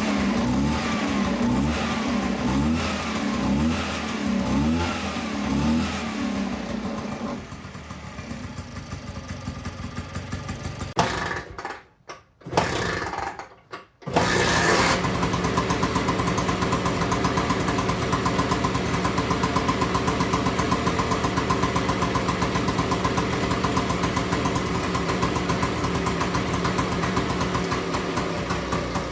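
Vespa VB1 scooter's two-stroke single-cylinder engine running. It is blipped up and down in quick repeated revs for the first several seconds, then drops to a quieter run. After a few brief cut-outs near the middle it settles into a steady idle.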